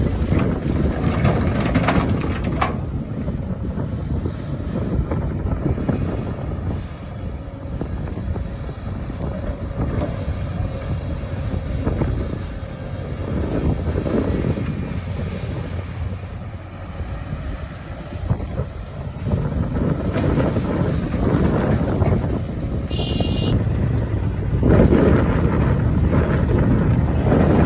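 Excavator's diesel engine running under load with a steady low rumble, rising and easing several times as it digs, loudest in the last few seconds.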